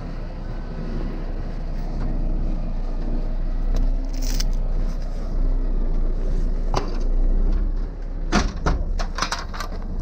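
Heavy truck's diesel engine running steadily, with a few sharp knocks over it, most of them bunched together near the end.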